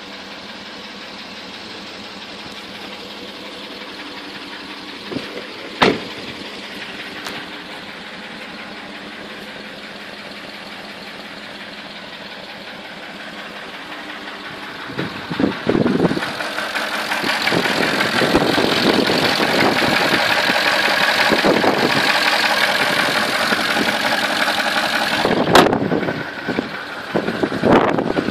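2003 Porsche Cayenne S 4.5 V8 engine idling, with the knocking noise the owner reports while it smokes badly from the exhaust at idle. There is one sharp click about six seconds in. Past halfway the sound grows louder and rougher.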